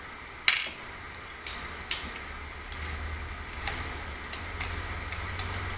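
Small metal parts and tools clicking and clinking as the receiver shell of a Sharp Innova pump air rifle is taken apart. There is one sharp click about half a second in, followed by scattered lighter taps over a low hum.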